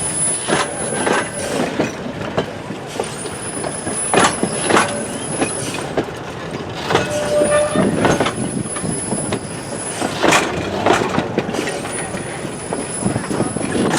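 Railway train rolling slowly, with irregular metallic clanks and knocks from its wheels and couplings.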